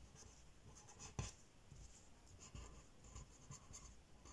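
Faint scratching of a pen writing on lined paper in short strokes, with a light tap about a second in.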